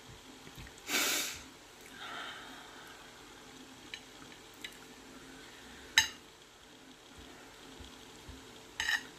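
Quiet sounds of a person eating: a short rush of breath like a sniff about a second in, small ticks, and a sharp click of a metal fork against the plate about six seconds in. A steady low hum runs underneath.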